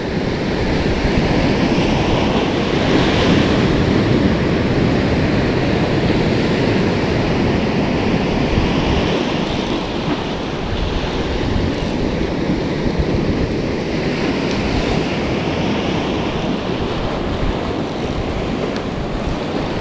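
Ocean surf washing against the shore, with wind blowing across the microphone: a loud, steady rush of noise that swells a little now and then.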